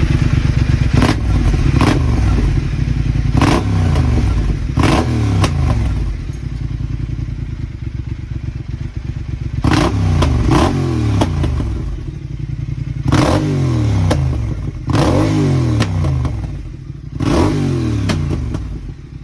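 Triumph Thruxton TFC's parallel-twin engine blipped hard about nine times over a steady idle, each rev dropping quickly back down, through Vance and Hines pipes with the baffles removed and an x-pipe: a straight-through exhaust, really loud.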